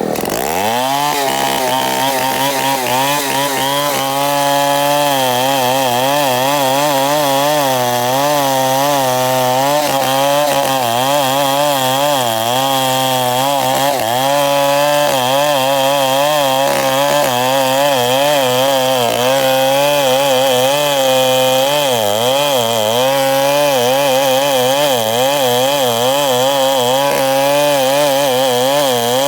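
Two-stroke chainsaw revving up at the start, then running at high throttle through a cut in a wooden board, its engine pitch wavering up and down as it works under load.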